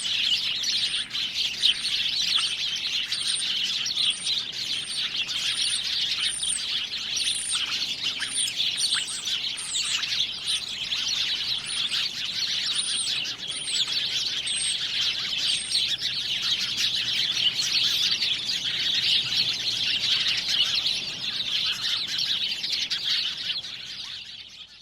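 Many small birds chirping densely together in a continuous chatter. A thin, high note repeats about once a second through the first two-thirds. The sound fades out at the end.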